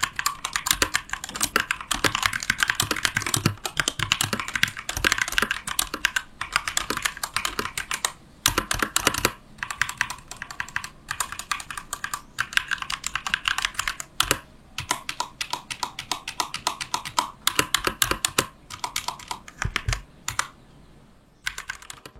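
Typing test on a Keychron K2 Version 2 mechanical keyboard with Gateron Red linear switches: fast, dense runs of keystroke clacks broken by short pauses, thinning out near the end.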